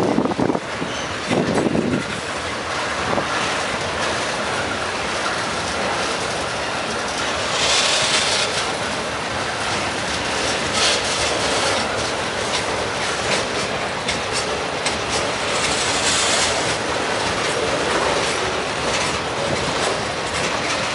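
Freight cars rolling past close by: a continuous rolling noise of steel wheels on the rails. Twice it briefly turns harsher and more hissing in the high range.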